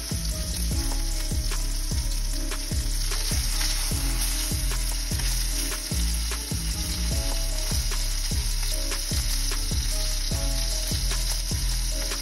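New York strip steak sizzling steadily in hot beef fat and olive oil in a cast iron skillet as it sears. A background music track with a heavy, regular bass beat runs underneath.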